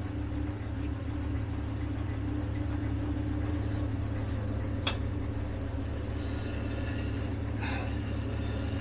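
Steady low machine hum in a workshop. A single sharp click comes about five seconds in, and a thin high whine joins about six seconds in.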